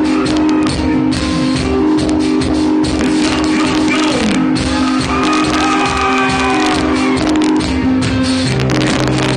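Rock band playing live, loud: electric guitars holding chords over drums, with the singer's voice over the PA.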